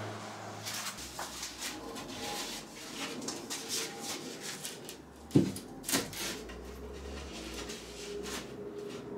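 A large OSB wood sheet being handled and pushed into place against a wall: scraping and rubbing with scattered clicks, and two sharp knocks about half a second apart a little after halfway.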